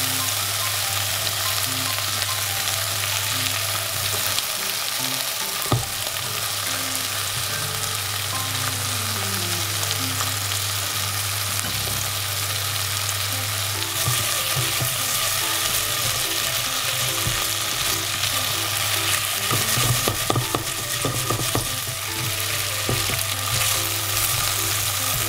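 Pork belly, lotus root and leek pieces sizzling steadily in hot sesame oil in a pot, with a steady low hum beneath. Near the end, chopsticks turn the pieces over, adding light clicks and scrapes against the pot.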